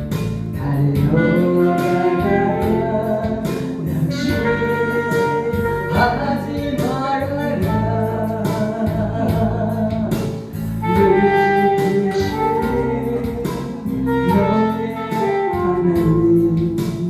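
Instrumental interlude of a gospel worship song: a held, flowing lead melody over full band accompaniment with a steady beat.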